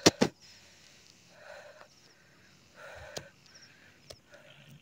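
Heavy breathing of a person out of breath from climbing a steep slope: about three long breaths roughly a second and a half apart. Two sharp clicks come at the very start, and a few light knocks follow.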